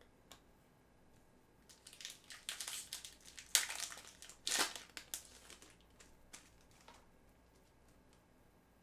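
Foil trading-card pack wrapper crinkling as it is handled and opened, a run of crackly rustles from about two seconds in until past the middle, loudest twice near the middle, then a few light ticks.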